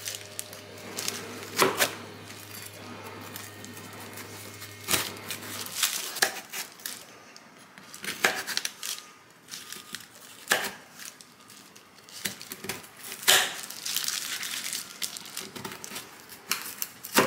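Kitchen knife cutting through a hard-frozen slab of strawberry-chocolate Greek yogurt bark: several sharp cracks a second or two apart as the blade snaps through, with crinkling of the parchment paper and plastic gloves between.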